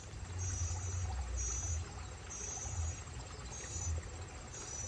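An insect, cricket-like, calling in short high-pitched trills repeated roughly once a second, over a low rumble.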